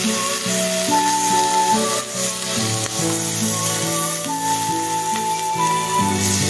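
Shucked oysters sizzling on an electric hot plate: a steady frying hiss.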